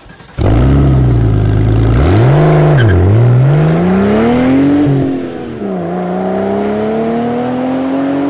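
Car engine starting up about half a second in, idling briefly, then revved: a quick blip about two seconds in, followed by two slower climbs in pitch.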